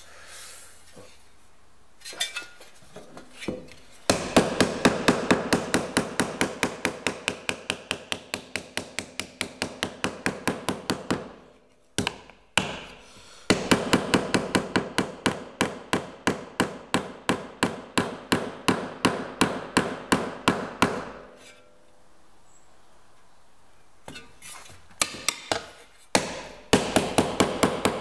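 Nylon mallet beating a sheet-metal repair panel against a leather sandbag, hand-forming a curve into it: runs of quick, even blows, about four or five a second. There are three main runs, with short pauses and a few scattered taps between them.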